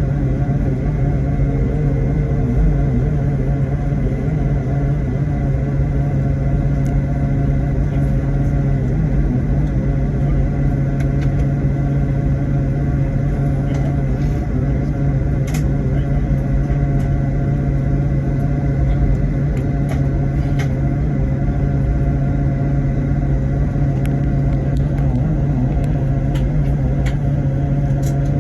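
Steady drone of an airliner's engines heard inside the passenger cabin: a constant deep hum with a few steady tones above it and an occasional faint click.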